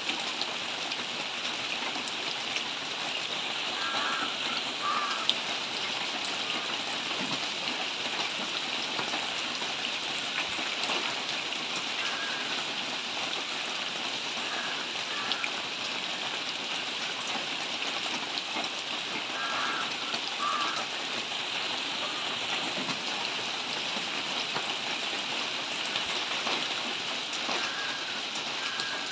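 Steady rainfall, an even hiss with scattered drop ticks throughout.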